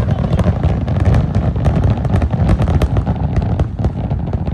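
Fireworks display: a continuous low rumble of aerial bursts overlaid with many rapid sharp crackling pops.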